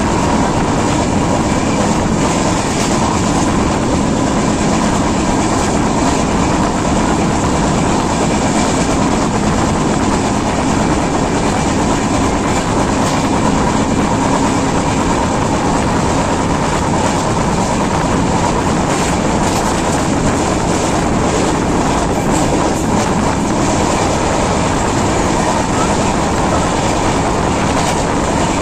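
Steady, loud running noise of the 12330 West Bengal Sampark Kranti express at speed, heard from the open side of a coach: the rush and rumble of wheels on rail and passing air, with faint irregular clicks from the track.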